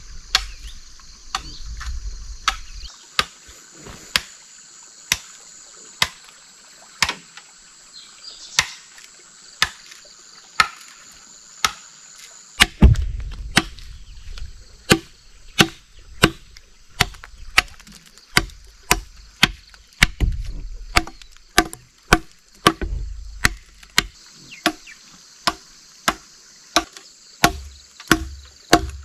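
Machete chopping into a wooden log, shaping it into a trough: sharp, evenly spaced chops about once a second, quickening to about two a second from around halfway.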